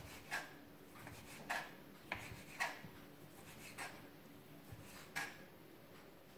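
Kitchen knife cutting cooked chicken into cubes, its blade knocking lightly on a wooden cutting board about six times at uneven intervals.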